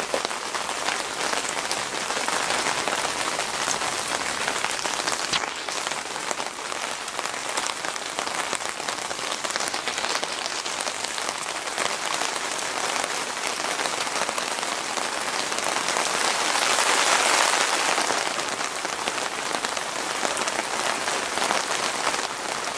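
Thunderstorm downpour: heavy rain falling steadily, growing louder for a few seconds about two-thirds of the way through.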